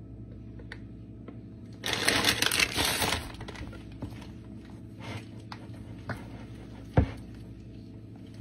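Plastic shredded-cheese bag crinkling for about a second, then a spatula stirring a thick cream-cheese mix in a glass bowl with light scrapes and clicks and one sharp knock near the end, over a steady low hum.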